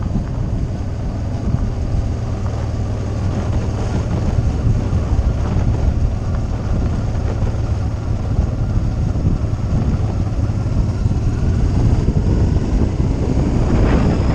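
Motorcycle running steadily at riding speed, its low engine rumble mixed with wind noise on the camera microphone.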